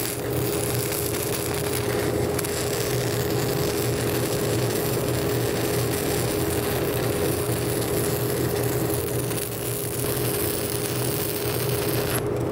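Stick-welding arc of a 1/8-inch 6010 electrode at 90 amps burning steadily while running a root repair pass, with a steady hum underneath. The arc cuts off just before the end.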